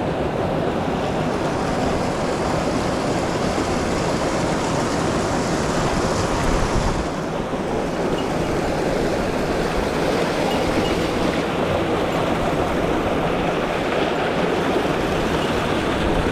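Mountain stream water rushing over rocks, a steady noise.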